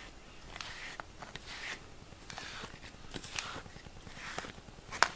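A pink grooming brush swishing through a cat's fur in repeated strokes, about one a second, with a sharp click near the end.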